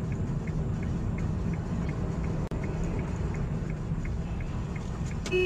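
Steady low rumble of a car's engine and tyres heard from inside the cabin, with faint regular ticking about three times a second. A short beep sounds near the end.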